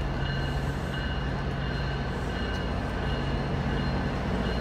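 Commuter-rail diesel locomotive idling: a steady low engine hum with a thin, constant high whine over it.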